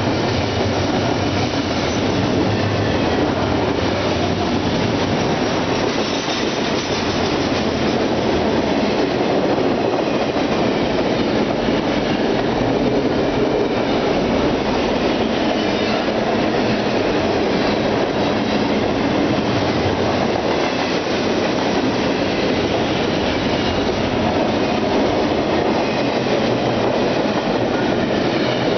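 Double-stack intermodal freight train's cars rolling steadily past, a continuous rumble and clatter of steel wheels on rail, mixed with heavy rain.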